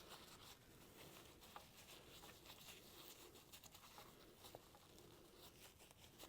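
Faint rubbing and scratching of a rag wiping oil over the metal of an 1884 Springfield trapdoor rifle, with a few small clicks.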